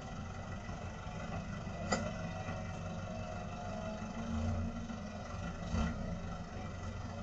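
Light cargo truck's engine running low and steady as the truck reverses slowly, with a couple of short sharp clicks about two and six seconds in.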